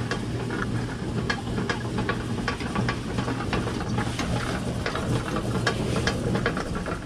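Motorised cloth measuring and winding machine running as fabric feeds through it, a steady motor hum under a rustle of fabric and irregular light clicks. The hum drops away near the end.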